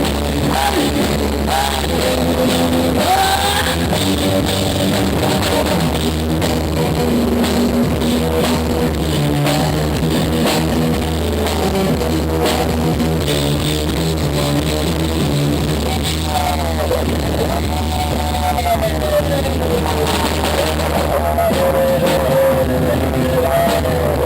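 Rock band music with a drum kit and guitar, playing at a steady level.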